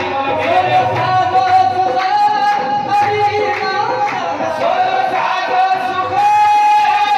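Qawwali: a voice holding long sustained notes over a driving tabla beat.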